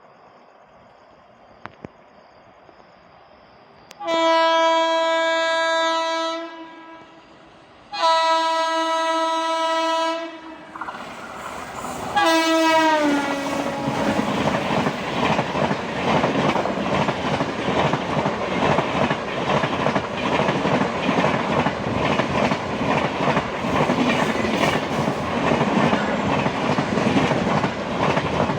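Indian Railways locomotive horn sounding two long blasts and then a short third blast that falls in pitch as the train passes at speed. The train then runs past with a continuous loud rumble and the rapid, rhythmic clickety-clack of wheels over rail joints.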